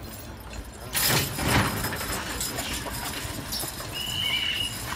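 Hooves of draft horses beating on a dirt arena as the team moves, with a loud rushing burst about a second in and a brief high whistle-like tone near the end.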